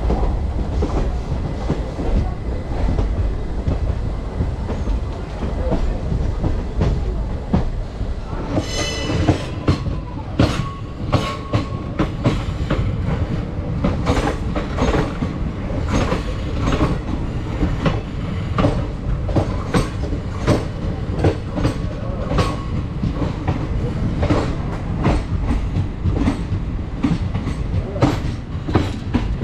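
Passenger train running on the rails: a steady low rumble with wheels clicking over rail joints, the clicks turning into a quick, regular clickety-clack after about ten seconds. A brief high squeal comes about nine seconds in.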